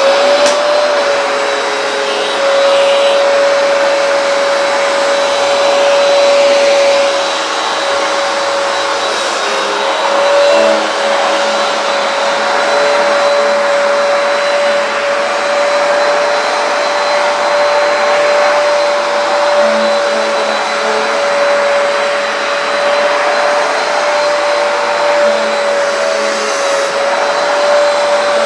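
Hoover PowerDash Advanced carpet cleaner's suction motor running steadily with a high, even whine over rushing air during a wet clean of a rug.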